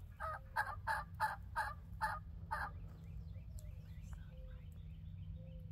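Turkey yelping: a run of seven short, evenly spaced yelps in about two and a half seconds, followed by a few faint, soft notes.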